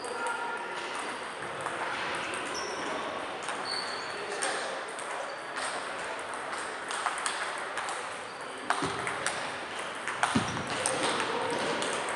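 Table tennis balls clicking off paddles and tables from several games at once: an irregular run of sharp taps over background noise from the hall.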